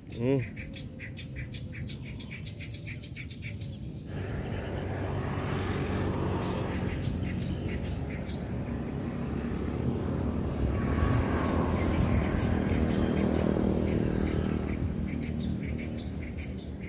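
A motor vehicle passing close by: its engine and road noise swell from about four seconds in, are loudest a few seconds later, and fade near the end. Before it, rapid chirping, about four a second.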